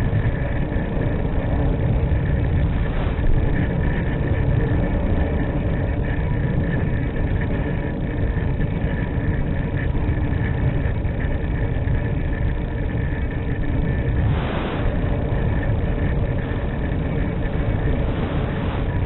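Steady rush of airflow over the onboard microphone of an E-flite Mystique RC glider in flight, with a few faint steady whining tones above it. A brief burst of hiss about fourteen seconds in.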